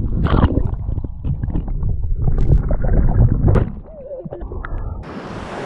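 Underwater churning and gurgling of shallow surf, heard through a submerged microphone: muffled and rumbling, easing after about three and a half seconds. Near the end the microphone comes out of the water and the open-air wash of surf and wind returns.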